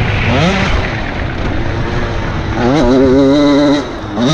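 Motocross bike's engine heard onboard at speed. It revs up briefly just after the start, then climbs and holds high revs from about two-thirds of the way through, and eases off near the end.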